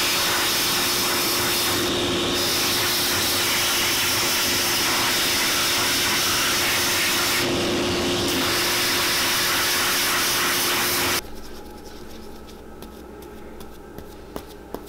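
Shoe-finishing machine running steadily with a loud hiss and a faint hum while a leather midsole is sanded on its drum; the machine stops suddenly about eleven seconds in, leaving a few light handling clicks.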